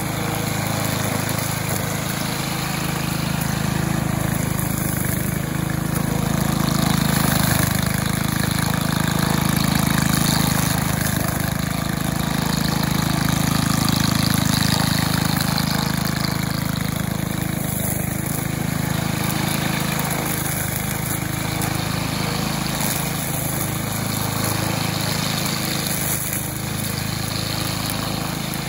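Cub Cadet WST 100 wheeled string trimmer's 140cc single-cylinder engine running at a steady speed.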